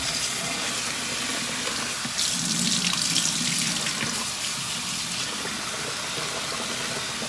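Kitchen tap running steadily into a plastic bowl of rice as a hand swirls the grains in the water, slightly louder for a couple of seconds partway through.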